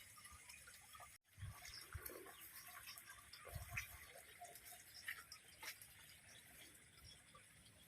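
Near silence: faint scattered ticks and a few soft low knocks, broken by a brief complete dropout a little over a second in.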